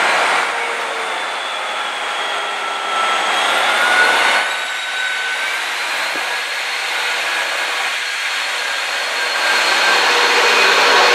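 Class 153 single-car diesel multiple unit running in along the platform, its underfloor diesel engine and transmission giving a steady whine of several tones over a dense rumble. It grows louder near the end as the cab draws level.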